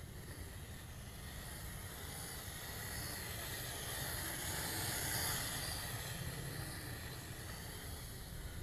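Toy quadcopter in flight, its motors and propellers whining as several high, steady tones. The whine grows louder to a peak about halfway through, then fades again.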